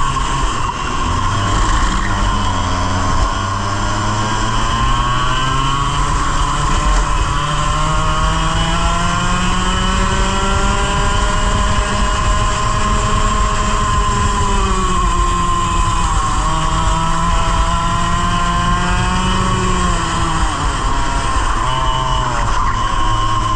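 100cc two-stroke kart engine under racing load, its pitch climbing steadily along a straight for about ten seconds, then falling off as the kart slows for corners and picking up again, over constant wind noise.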